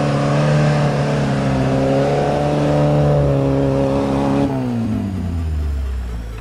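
Off-road 4x4 engine held at high revs, its pitch wavering a little, then falling steadily as the revs drop about four and a half seconds in.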